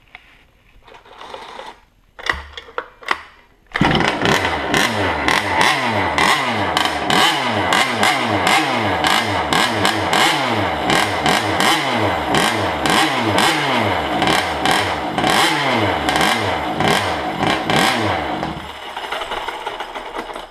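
Losi 5ive-T's 23cc two-stroke engine: a few clattering pull-start tugs, then it catches about four seconds in and runs on throttle, its pitch rising and falling again and again, before dropping to a lower, weaker run near the end. The engine will only keep running with about half throttle and quits as soon as the throttle is let off, a fault that new carburettors, diaphragms and fuel lines have not cured.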